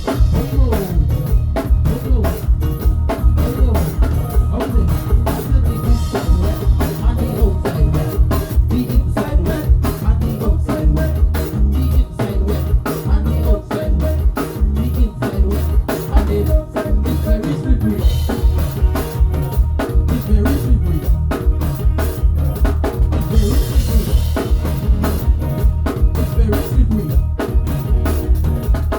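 Drum kit playing a steady, busy beat with bass drum and snare, over backing music with bass and melodic lines.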